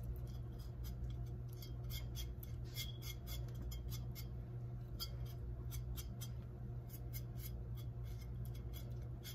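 A kitchen knife scraping the skin of a raw pig's foot to clean it: many short, irregular scrapes, a few each second, over a low steady hum.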